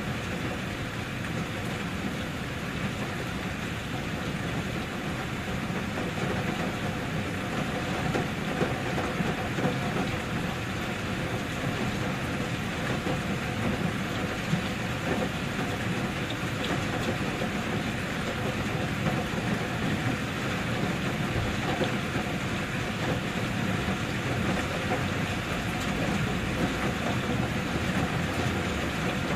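Steady rain, a dense even hiss with a low rumble underneath that holds without a break.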